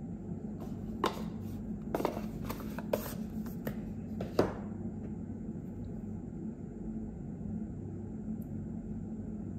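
Unboxing handling noises: a handful of sharp clicks and short rustles of packaging and small accessories in the first four and a half seconds, then only a steady low hum.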